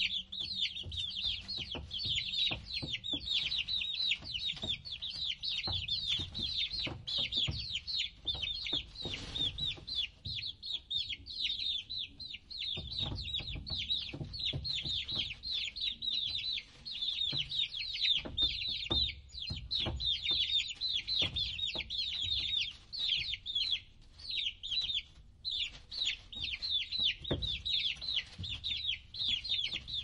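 A crowd of baby chicks peeping without pause, many high, quick chirps overlapping, with a short lull about 25 seconds in.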